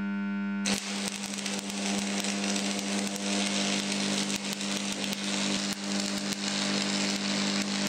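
Stick (shielded metal arc) welding on flat steel: the electrode's arc strikes about a second in and burns with a steady crackling sizzle, over a steady low hum.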